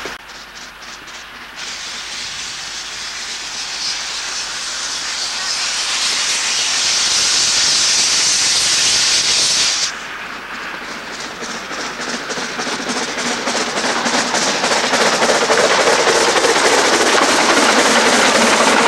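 Narrow-gauge 0-4-4-0 steam locomotive No 5 Hamra approaching: a loud hiss of escaping steam builds and then cuts off suddenly about ten seconds in. It is followed by a fast rhythmic beat of the working engine and train that grows steadily louder as the locomotive draws near.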